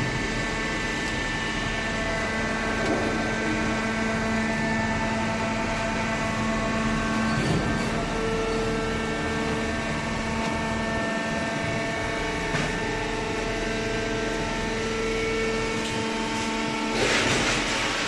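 Hydraulic cardboard baler running: its electric motor and hydraulic pump give a steady hum with a whine. A short rush of hiss comes near the end.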